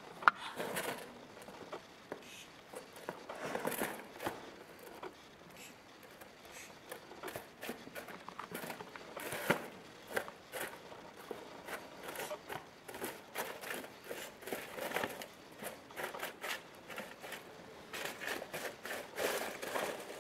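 A young least weasel moving about its cage: irregular scratching, rustling and crinkling from its claws on wire mesh and cardboard and from straw and foil, with one sharp click at the very start.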